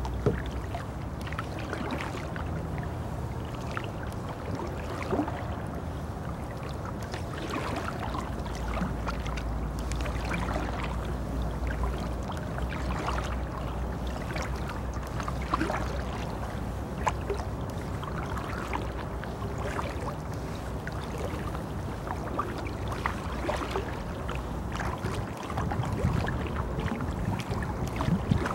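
A wooden canoe being paddled on calm water: irregular small splashes and trickles from the paddle and water along the hull, over a steady low rumble.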